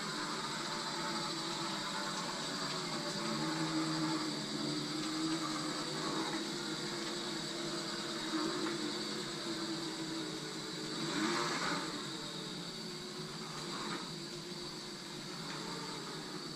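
Electric motors of a radio-controlled reel lawn mower, built around a 24 V DC motor, running with a steady whir and high whine, the pitch wavering a little; a louder rush swells about eleven seconds in.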